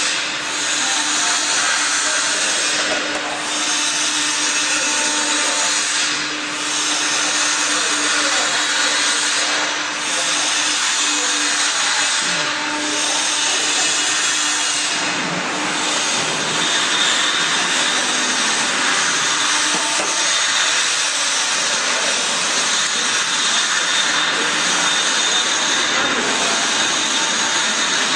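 Loud, steady machine noise from workshop machinery running, a whooshing hiss with brief dips every few seconds during the first half.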